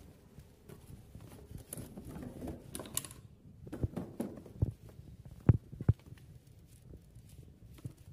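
Soft rustling and scratching with a handful of light knocks and taps, the sharpest just past the middle: a cat in a fleece outfit scrabbling and pawing into a gap at the foot of a wall on a tile floor.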